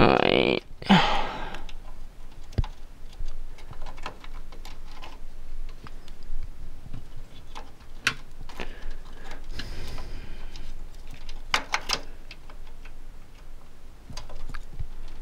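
Scattered small clicks, taps and rattles of hands working inside a desktop computer case, pushing past power cables to seat a DDR3 memory module in its slot, with a louder rustle right at the start.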